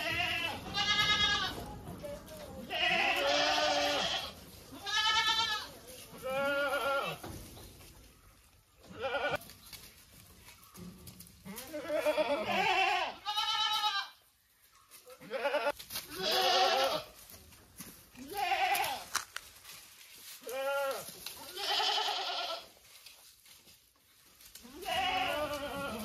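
Goats bleating again and again, about fifteen calls, each a wavering, quavering cry at a different pitch, with short pauses between.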